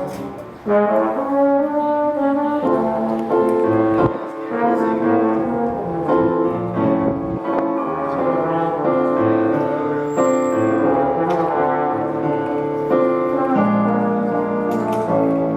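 Music played by brass instruments: several held notes sounding together in chords, moving from chord to chord every second or so.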